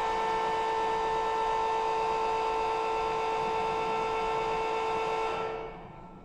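Electro-hydraulic ballast valve actuator's pump motor (Damcos local power unit) running with a steady hum, then dying away and stopping about five and a half seconds in, the sign that hydraulic pressure has built up with the valve driven open.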